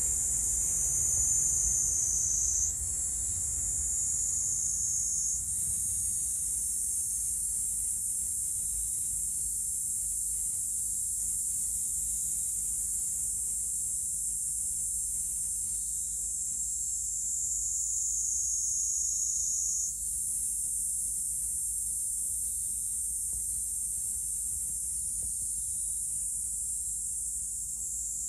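Steady, high-pitched shrilling of insects in garden vegetation, with a few abrupt shifts in level and pitch.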